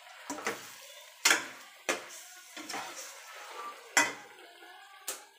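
A metal slotted spatula stirring in a stainless steel pot, clanking and scraping against the pot's sides about six times; the loudest knocks come a little over a second in and about four seconds in.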